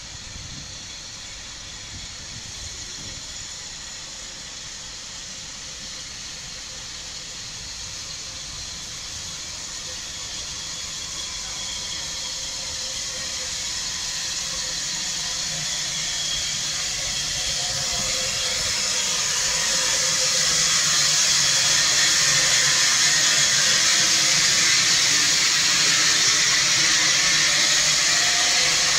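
Bulleid West Country class steam locomotive 34092 City of Wells coming alongside the platform with steam hissing. The hiss grows steadily louder, with a low rumble underneath, and is loud in the last third as the engine draws level.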